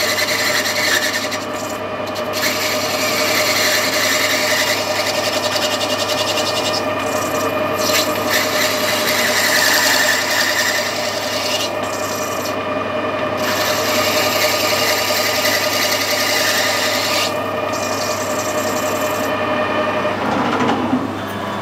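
Metal lathe running, with a right-hand knife tool taking a light cut on a brass fitting: a steady machine hum under a rasping cutting noise as brass chips fly off. The cutting noise stops shortly before the end.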